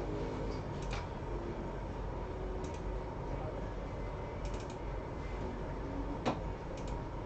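A few scattered clicks of computer keys over a steady background hum with a faint steady tone. The loudest click comes about six seconds in.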